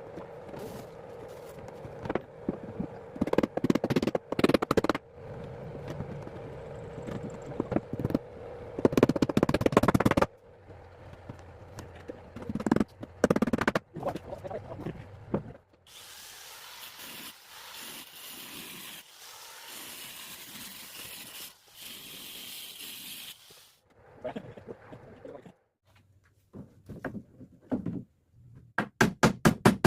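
Power tools working wood: a tool running with a steady hum and repeated louder bursts, then a stretch of steady hiss. A quick run of evenly spaced knocks starts just before the end.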